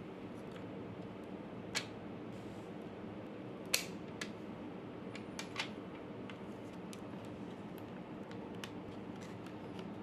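Scattered small clicks and taps of laptop parts being handled during a RAM upgrade, the sharpest about four seconds in, over a steady low hum.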